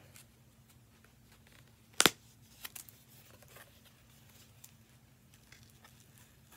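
A small paper or card package being handled and opened by hand: a sharp double snap about two seconds in, then lighter crinkles and clicks of the packaging.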